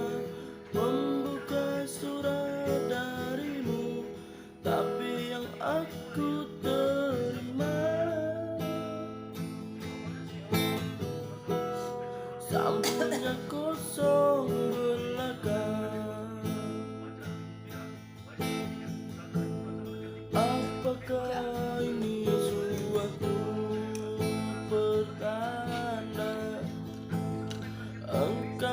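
Acoustic guitar strummed as accompaniment to a cover song, with a voice singing the melody over it.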